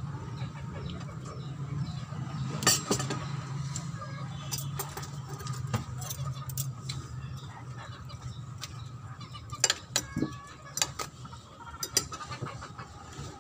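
Eating by hand at close range: chewing and mouth sounds with several sharp clicks and smacks, over a steady low hum.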